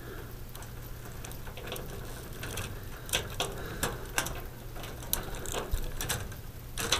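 Hands handling and bundling the lead wires of a fluorescent ballast: scattered small clicks and rustles of the stiff wires and plastic push-in connectors, over a low steady hum.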